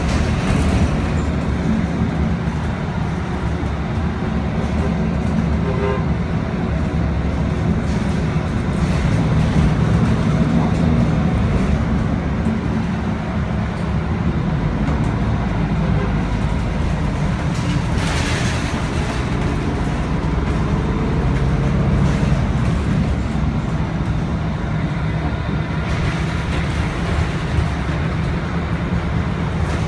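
Interior noise of a city transit bus while riding: the diesel engine running and a steady low road rumble, with a short hiss about eighteen seconds in.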